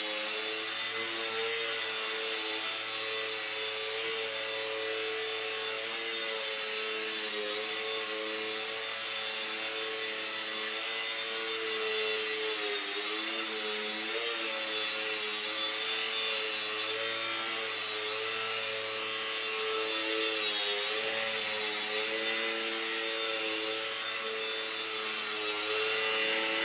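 Micro UMX Extra 300 electric RC airplane hovering nose-up: its small electric motor and propeller make a steady buzzing hum whose pitch wavers up and down as the throttle is worked to hold the hover.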